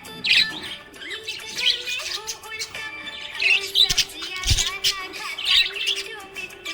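Small pet parrots chirping in quick repeated bursts every second or so, over background music with steady held notes. A brief low bump comes about four and a half seconds in.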